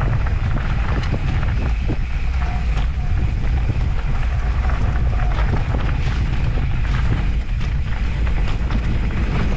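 Wind buffeting the microphone over the rumble of an off-road handcycle's tyres rolling on a dirt trail at speed, with scattered clicks and rattles from bumps.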